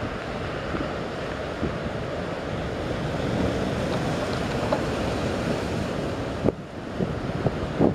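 Wind buffeting the microphone over choppy harbour water, easing briefly about six and a half seconds in.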